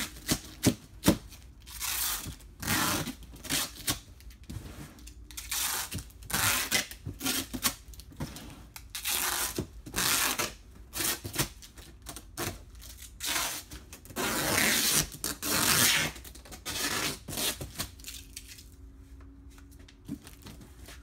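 Corrugated cardboard flaps being bent, creased and rubbed down by hand, with packing tape being pulled and pressed on. The sound is a string of rustling, scraping bursts, one longer stretch about two-thirds of the way through.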